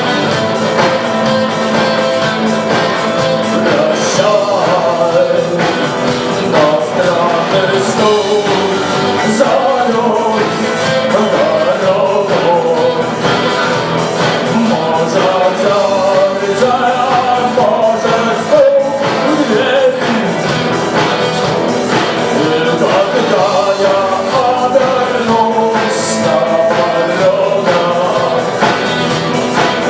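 Rock music: a full band playing, with a melodic lead line wandering over the steady backing.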